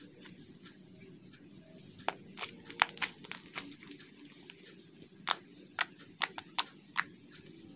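Fingers pressing and kneading a lump of slime, giving a series of short, sharp sticky clicks and pops: a quick cluster about two seconds in, then several single pops spaced about half a second apart near the end.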